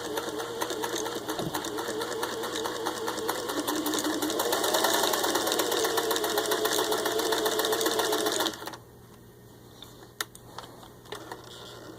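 Singer 500A Rocketeer sewing machine with a rebuilt motor, stitching through six layers of denim: a motor whine over rapid needle strokes. It speeds up about four seconds in and stops a little past two-thirds of the way through, followed by a single faint click.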